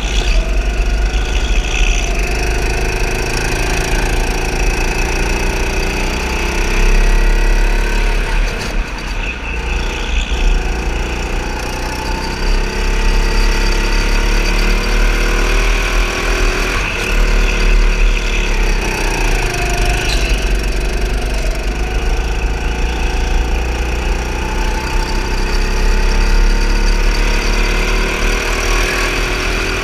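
Go-kart motor running at speed, its pitch slowly rising and falling as the kart speeds up and slows through the corners, over a steady low rumble.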